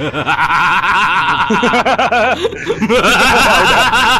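Cartoonish laughing sound effect made of several high, chattering voices layered together, in quick rising-and-falling notes that break off briefly about two and a half seconds in.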